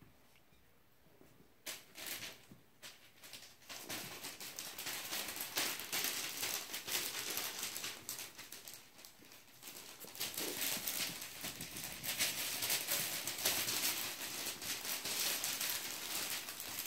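Havanese puppies scampering and tussling on a large sheet of paper, the paper rustling and crinkling under their paws. It begins with a few scattered taps and becomes a dense, continuous rustle about four seconds in.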